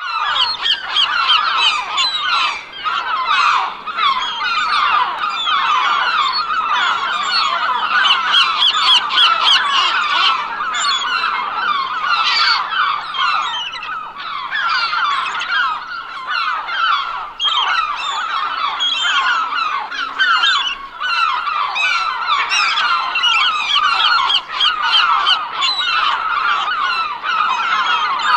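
A large flock of birds calling over one another in a dense, unbroken chorus of many short overlapping calls.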